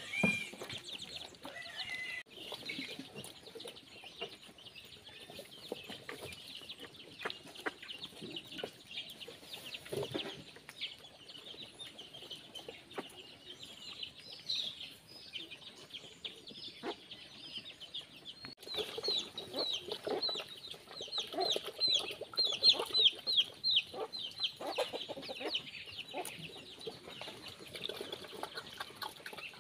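Chickens clucking among pigs feeding at a trough, with the pigs' chewing sounds underneath and a steady high hiss behind. A quick run of short, high, falling chirps comes about two-thirds of the way through.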